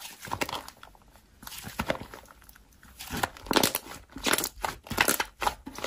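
Thick slime being stretched and squeezed by hand, giving a run of sticky clicks and crackles. They are sparse at first and come denser and louder from about three seconds in.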